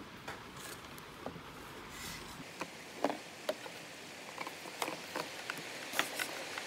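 Irregular small clicks and taps of hands handling the USB cable and the phone, over a faint steady hiss.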